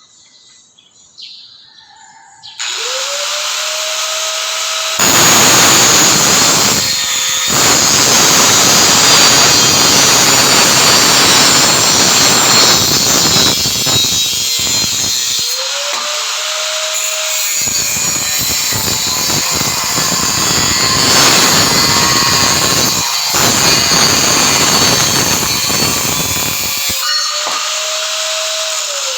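Electric angle grinder spinning up with a rising whine, then biting into steel in two long, loud stretches. Between and after the stretches it runs free with a steady whine, and it winds down at the very end.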